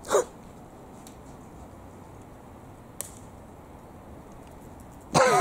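Quiet outdoor background, with a short falling sound at the very start and one sharp click about three seconds in. Voices start near the end.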